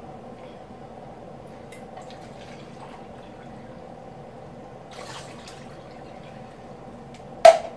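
Water poured from a plastic pitcher into an emptied juice-concentrate can to measure it, faint dripping and filling, with a sharp knock near the end.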